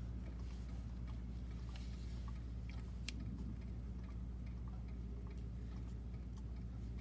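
Steady low hum with faint, scattered ticks and clicks over it, one sharper click about three seconds in.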